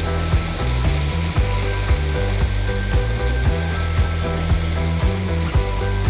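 Wooden spatula scraping and knocking against a nonstick kadai while tomato and microgreens are stirred, with a sharp stroke about every half second, over background music.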